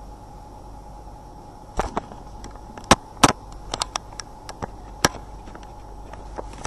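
A run of about a dozen irregular sharp clicks and knocks over a steady background hum, starting about two seconds in; the loudest two come close together around the middle.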